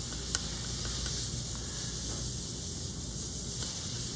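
Steady hiss with a faint click about a third of a second in.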